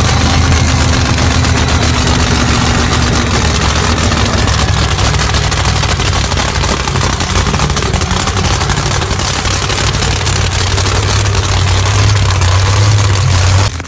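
Supercharged V8 of a sand dragster idling loud and steady through open, unmuffled header pipes.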